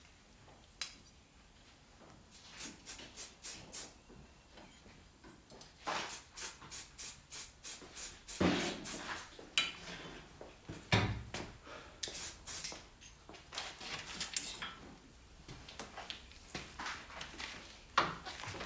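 Runs of quick, light metallic clicking and clinking, about four strikes a second, in several bursts separated by short pauses.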